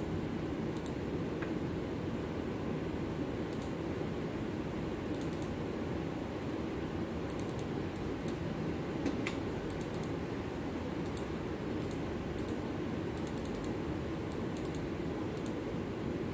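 Steady low machine noise from a CNC router standing idle, not cutting, with faint high ticks scattered irregularly through it and one slightly louder click about nine seconds in.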